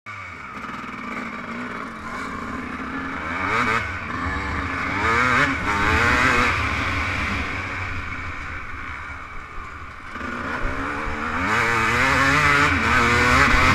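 Suzuki RM250 two-stroke single-cylinder motocross engine under hard riding, heard from the rider's helmet: it revs up hard twice, easing off and dropping in pitch in the middle as the rider accelerates and backs off between sections of the track.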